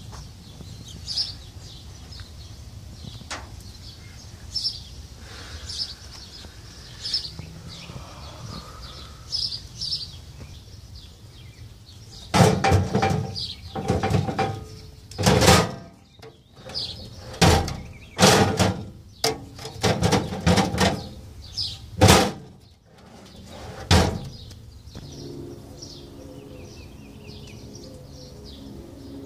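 Steel Craftsman tool chest drawers being pulled open and pushed shut on their metal slides, with rattles and knocks, over and over through the middle of the stretch. A bird chirps about once a second before the drawers start.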